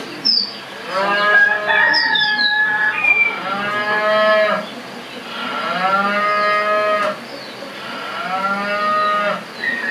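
Cattle lowing: four long calls, each rising and falling over about a second, with a few short high chirps in the first two seconds.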